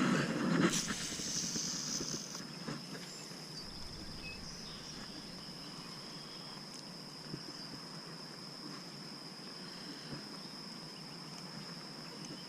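Steady high-pitched insect trill over outdoor ambience, with rustling and handling noise during the first couple of seconds.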